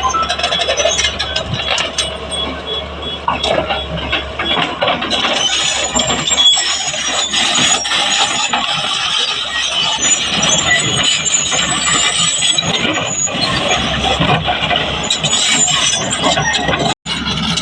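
Excavator working while loading a dumper truck: engine running under load with high squeals and scattered knocks from the machinery. The sound cuts out for a moment near the end.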